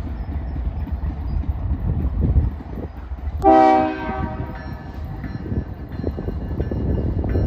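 A diesel freight locomotive's horn gives one short blast about three and a half seconds in, over the low rumble of the approaching train.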